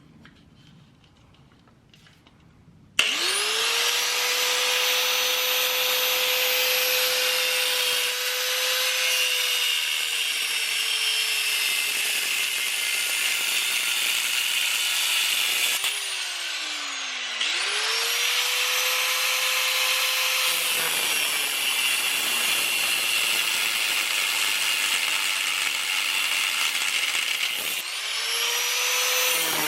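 High-speed cut-off wheel cutting through rusted exhaust manifold studs. It spins up with a rising whine about three seconds in, runs under load with its pitch sagging slowly, and winds down about halfway through. It then spins up again, pauses briefly near the end and starts once more.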